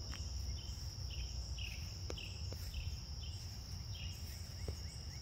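Insects singing in the summer vegetation: one steady high-pitched trill with a shorter falling chirp repeating about twice a second below it, over a low rumble of outdoor background noise.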